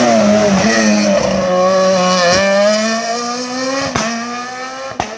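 Peugeot 207 rally car passing close by at speed, its engine note dipping slightly, then climbing steadily as it accelerates away, with a couple of sharp cracks along the way.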